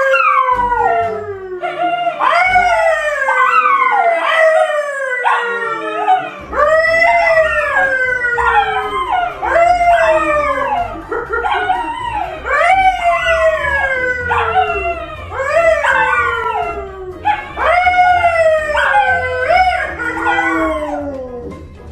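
A dog howling over and over, a long string of calls that each slide down in pitch, about one every second or so.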